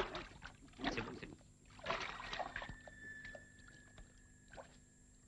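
Water splashing and sloshing in a bathtub as a bound man is forced under: three loud splashes in the first three seconds, then quieter dripping and small knocks.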